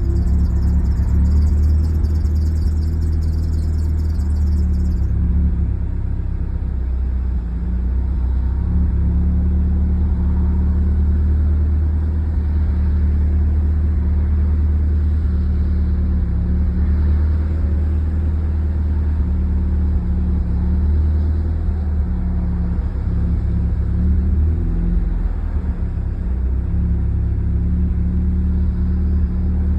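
A 2001 Mitsubishi Eclipse RS's 2.4-litre four-cylinder engine running steadily at an even speed, a constant low hum without revving.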